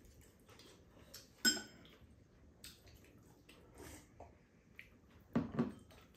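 Chopsticks and ceramic bowls clinking and tapping during a meal, with small eating sounds between. One sharp, ringing clink about a second and a half in, and a louder short sound near the end.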